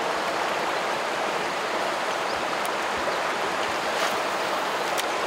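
River water flowing steadily past a wader standing in the current: a continuous, even rush of moving water.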